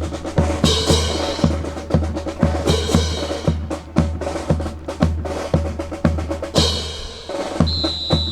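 Marching drum cadence: a bass drum beating steadily about twice a second under snare strokes and sharp clacks. A steady high whistle-like tone starts near the end.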